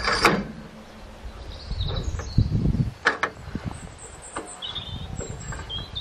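Handling noise around a steel sawmill frame: a sudden scraping clatter at the start, then scattered knocks and low rumbling. Birds chirp faintly near the end.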